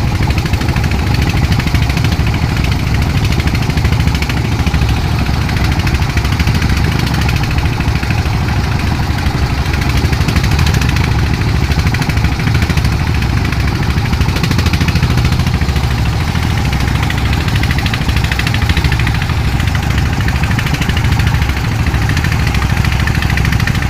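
Fishing boat's engine running steadily with a loud, even low rumble.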